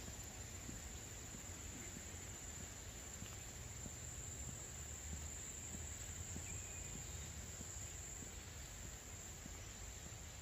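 Faint, steady high-pitched insect chirring, like crickets, with an even low rumble beneath.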